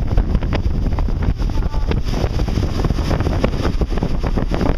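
Wind buffeting the camera microphone aboard a boat: a loud, uneven low rumble with frequent crackles.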